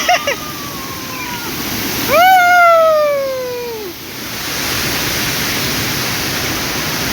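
Steady rushing of a waterfall. About two seconds in, a loud drawn-out call rises briefly and then falls in pitch for nearly two seconds over the water noise.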